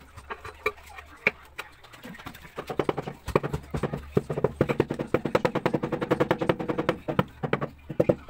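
A fast, dense run of sharp clicks lasting several seconds, made by a hand tool at work on ceramic floor tile.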